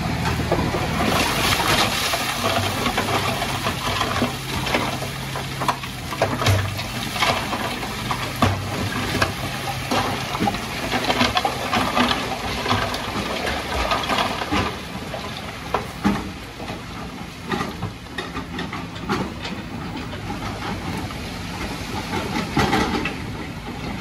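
Rock and dirt sliding out of a tipped dump truck bed: a continuous rushing hiss broken by many sharp clattering knocks of stones, with the truck's engine humming low underneath for the first several seconds.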